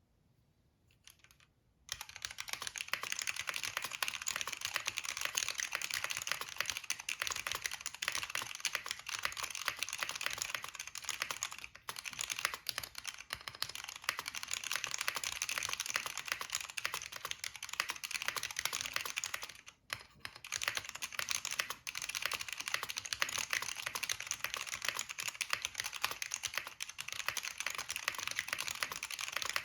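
Fast continuous typing on a mechanical keyboard with SKCM Brown Alps switches, stack-mounted acrylic plate and vintage Zenith Z-150 and Acer keycaps: a dense run of key clicks that starts about two seconds in, with brief pauses around a third and two thirds of the way through.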